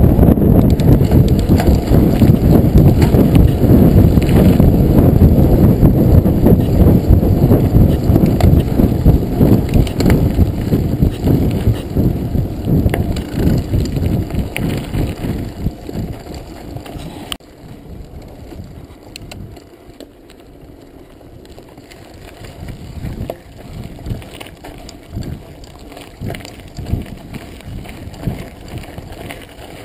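Wind buffeting the microphone of a handlebar-mounted action camera as a full-suspension mountain bike rolls along at speed. About 17 seconds in the wind dies down, leaving the crunch of tyres on a dirt and gravel track and the bike rattling over bumps.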